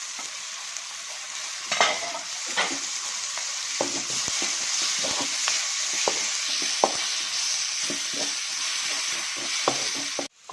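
Onions, tomato and crushed ginger-garlic sizzling in hot coconut oil in a wok, with a steady hiss. The food is being stirred, and the utensil clicks and scrapes against the pan every second or so. The sound cuts out briefly near the end.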